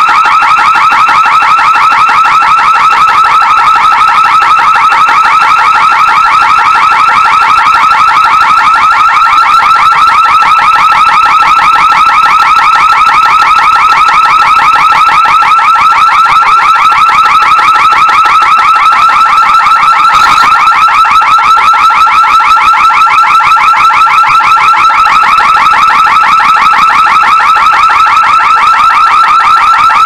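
Amseco SSX-52B security alarm siren sounding a loud, steady, fast warble without a break.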